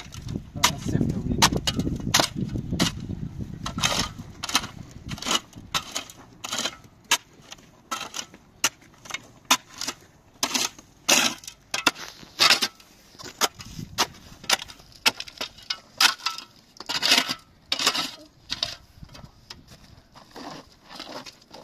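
Steel shovel blade scraping and scooping gritty, gravelly soil in a rapid, irregular run of sharp scrapes and clicks. The strokes thin out and grow quieter in the second half.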